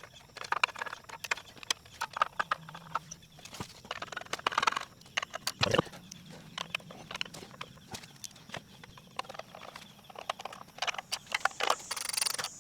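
Ratchet socket wrench on an extension clicking and knocking in irregular bursts as the 10mm bolts of a small engine's shroud cover are driven in and snugged.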